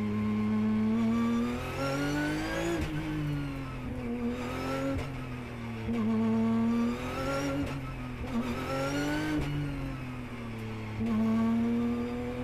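In-cockpit sound of a Porsche Carrera Cup race car's flat-six engine pulling in second gear at about 4,000–5,000 rpm, its pitch rising and falling several times as the driver gets on and off the throttle through slow corners.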